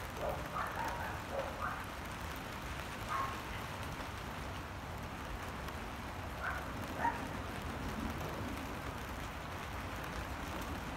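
Steady rain falling on a puddle and wet pavement: an even hiss with a low rumble underneath. A few short, higher-pitched sounds stand out near the start and again about six to seven seconds in.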